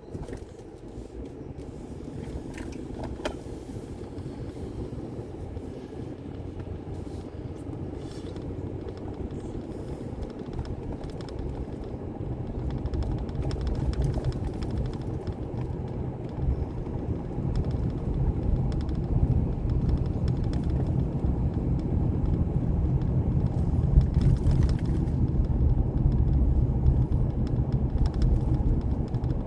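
Vehicle engine and road noise while driving: a steady low rumble that grows gradually louder.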